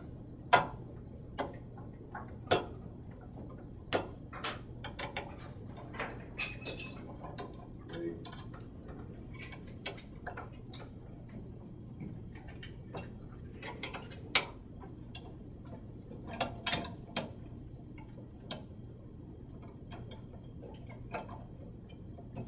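Allen wrench and small screws clicking against the metal frame as the screws are loosened and taken out: irregular light metallic clicks and ticks, some louder than others.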